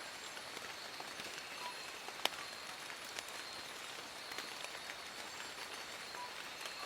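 Steady rain falling on forest leaves: an even hiss with a patter of individual drops, and one louder drop about two seconds in.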